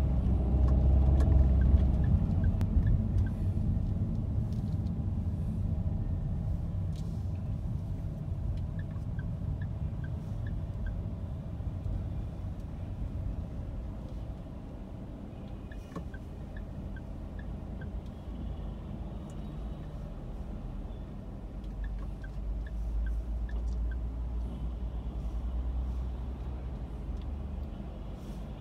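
Low rumble of road traffic heard from inside a car in city traffic, loudest in the first couple of seconds. A city bus is close alongside near the end.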